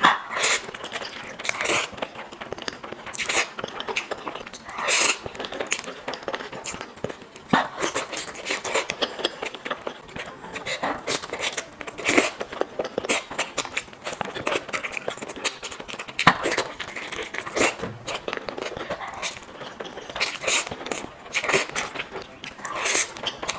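Close-miked eating sounds: an irregular run of sharp bites and chewing, with a louder bite every second or two.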